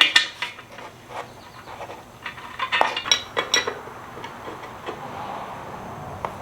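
Metal clinks and knocks of tools and parts being handled while oxygen sensors are threaded into new motorcycle exhaust pipes: a cluster right at the start, a couple about a second in, and a quick run of several about two to three and a half seconds in.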